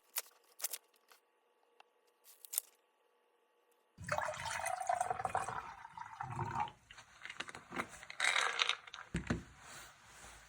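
A few faint clicks, then about four seconds in, water starts running and splashing irregularly, coming and going in bursts until near the end.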